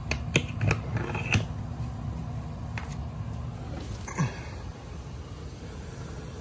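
Several sharp clicks and taps as a static-pressure probe is handled at a port in a foil-taped supply duct, over the steady low rumble of the air handler's blower running. One more short knock comes about four seconds in.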